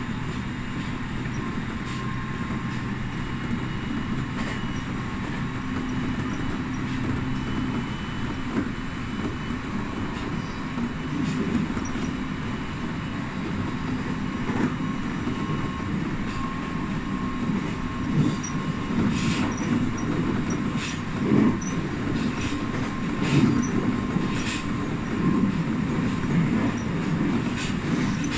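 Electric commuter train running on the rails, heard from inside the front of the leading car: a steady rumble of wheels on track with a constant hum. From about two-thirds of the way through, sharp clicks and knocks from the wheels over the track come more often.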